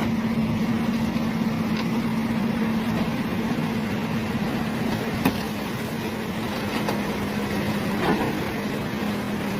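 An engine running steadily with an even hum, and one sharp click about five seconds in.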